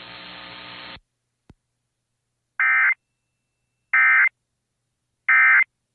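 A second of steady radio hiss and hum, a faint click, then three short identical bursts of Emergency Alert System digital data tones, each about a third of a second long and about 1.3 s apart. Bursts this short, sent three times, are the SAME end-of-message (NNNN) code that closes an EAS alert.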